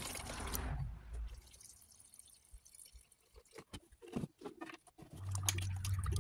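Paint reducer pouring from a gallon can into a plastic mixing bucket of paint, the stream tapering off about a second in. Then a few light knocks and clicks as the can is set down, and a stir stick working in the bucket near the end.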